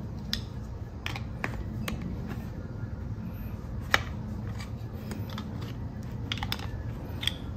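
Hard plastic clicking and scraping as a screwdriver pries a fuel pump loose from its plastic filter holder, with a sharp click about four seconds in.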